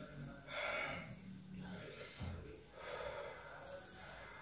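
A man breathing heavily through an open mouth, with loud breaths about half a second in and again near three seconds, and a short low bump just after two seconds.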